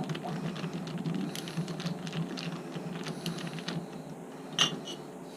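Light, irregular clicking and tapping of small hard parts being handled and worked by hand, with one sharper click about four and a half seconds in, over a steady low hum.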